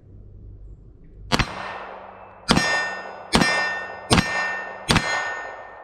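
Five pistol shots from a Glock-pattern handgun, spaced about a second apart and starting about a second in. Each shot is followed by the ring of a struck steel target.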